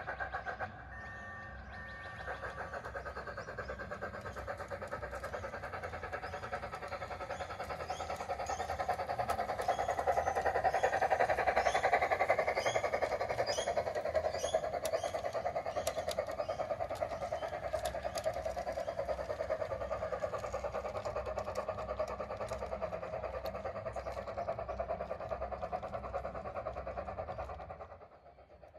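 Battery-powered large-scale garden model train running along its track, a steady running rumble that grows louder in the middle as the cars pass close and then eases off.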